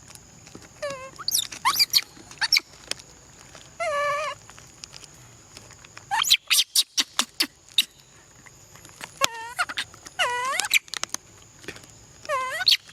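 Baby monkey calling: a string of short, high-pitched cries that dip and fall in pitch, with a quick run of sharp squeaks about six to seven seconds in.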